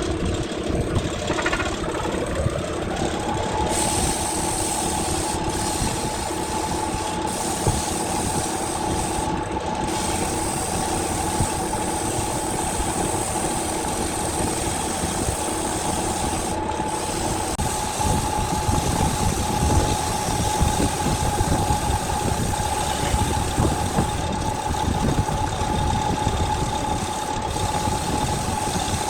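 Wood lathe motor speeding up, its whine rising over the first three seconds, then running at a steady speed over a constant rough noise.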